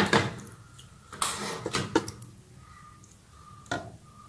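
Thick prawn masala being pressed and spread by hand across the base of a cooking pot: a few sharp clicks and knocks with a short scraping rub about a second in.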